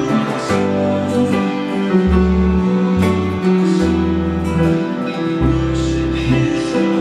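A small band playing a slow worship song: a Yamaha portable keyboard sounding chords, an acoustic guitar strumming, and deep bass notes held under them that change about once a second.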